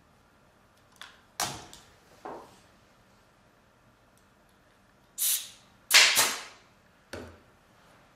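Pneumatic staple gun firing into the tack strip of a convertible top, about six sharp shots with short fading tails. The two loudest come about five and six seconds in.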